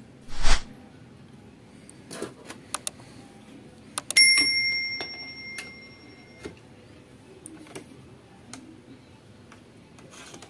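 Subscribe-button overlay sound effects: a short rushing burst, a few mouse-style clicks, then a click and a bell ding that rings out for about two seconds.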